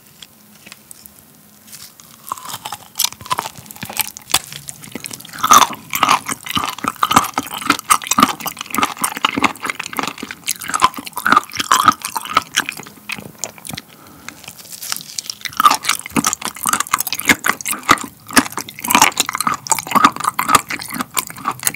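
Close-miked biting and chewing of a whole raw abalone, starting about two seconds in, with a short lull about two-thirds through.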